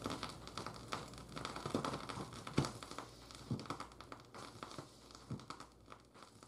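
Vinyl record surface noise under a turntable stylus: scattered crackles and pops over a faint low hum, fading out near the end.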